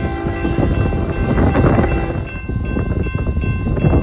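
Distant freight locomotive horn holding one blast for about two seconds, then stopping, as the train approaches, under heavy wind buffeting the microphone.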